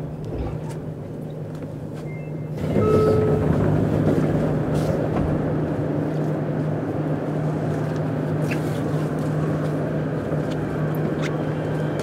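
Cabin sound inside a JR Kyushu 303 series electric multiple unit's motor car: a steady hum, with the running noise jumping up suddenly about two and a half seconds in and staying louder.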